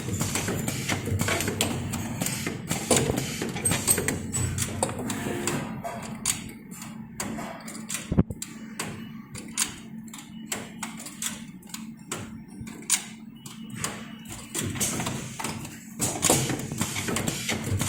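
Six-station automatic soldering machine running: a string of irregular mechanical clacks and knocks over a steady low hum. The clacks thin out to separate clicks through the middle, then grow busier again near the end.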